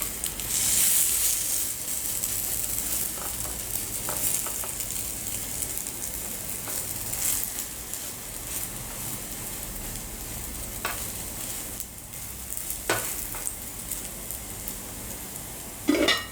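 Egg-dipped bread slices frying in ghee in a pan, sizzling steadily, loudest about a second in. A few sharp clicks come later, with a louder clatter near the end.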